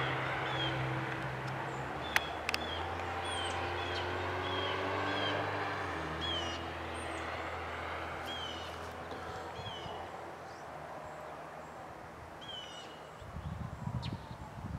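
An engine running steadily, dropping in pitch a couple of times and cutting out near the end. Over it a bird gives short, repeated, downward-slurred chirps, and there is one sharp click about two seconds in.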